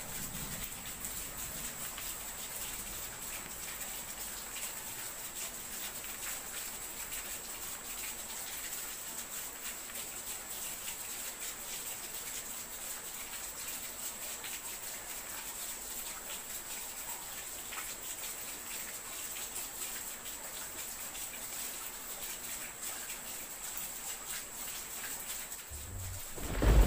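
Steady rain hiss with fine pattering drops and a thin steady high-pitched tone above it. About a second before the end, a loud low rumble of thunder rolls in.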